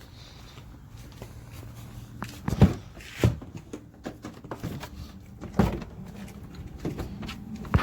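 Plastic clunks and knocks as the homemade ice-bucket swamp cooler is handled and opened, with three louder knocks about two and a half, three and a quarter, and five and a half seconds in. A low steady hum sits under the first couple of seconds.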